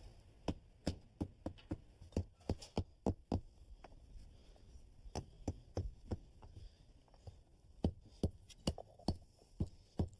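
Clay bricks being set by hand onto a stone-dust bed, giving irregular sharp knocks and clacks, several a second, with a couple of short pauses.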